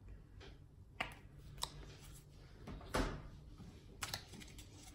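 Handling a plastic bottle of blue acrylic paint while squeezing a line of paint onto a gel printing plate: four or so faint, short clicks and knocks scattered through, the strongest about three seconds in.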